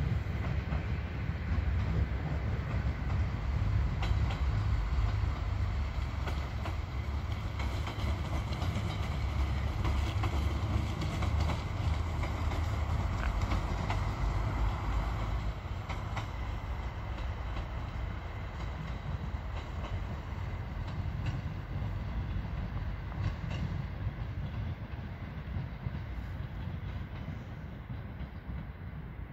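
A passenger train rolling past on the station tracks: a low rumble with wheel clicks over the rail joints, loudest in the first half and fading as the train moves away.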